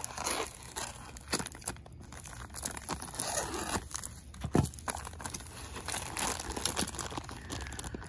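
Foam packing sheet and clear plastic wrap crinkling and rustling as they are cut open with scissors and pulled back, then a plastic bag of jewelry rustling as it is handled. Irregular small clicks run through it, with one sharper click about halfway through.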